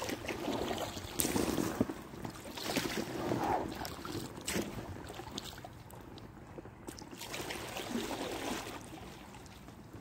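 Paddle strokes splashing and dripping in river water as an inflatable kayak is paddled to the bank. The splashes come in uneven swells, thinning out after about five seconds, with one more near eight seconds.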